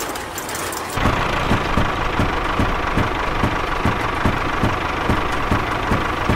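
A small motor running like an idling engine: a steady whine over a regular low thumping, about two to three beats a second, setting in about a second in after a brief hiss.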